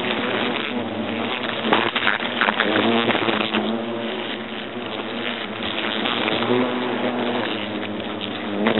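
European hornets buzzing in flight around their nest. The pitch of the buzz slides up and down several times as single hornets fly close past.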